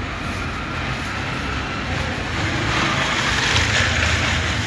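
Street traffic: a steady low rumble of passing cars, swelling as a vehicle goes by about three seconds in.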